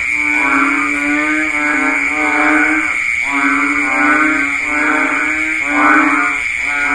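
Banded bullfrogs (Kaloula pulchra) calling: about five low, bleating calls, each about a second long, repeating one after another over a steady high-pitched drone.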